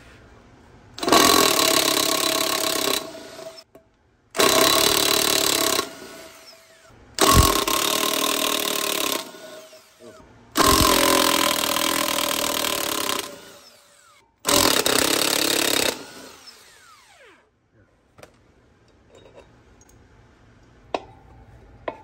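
Cordless impact wrench run in five bursts of about two seconds each, loosening the bolts that hold the rear belt pulley to a Harley-Davidson Softail's wheel hub. A few small metallic clicks follow near the end as the loose bolts and pulley are handled.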